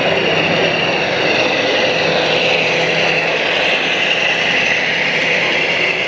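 Model train running on a layout: a steady mechanical hum with a wavering high whine over a constant background din.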